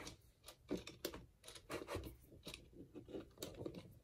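Fingers turning the time-setting knob on the back of a plastic quartz wall clock movement, making soft, irregular clicks and rubbing as the hands are wound round.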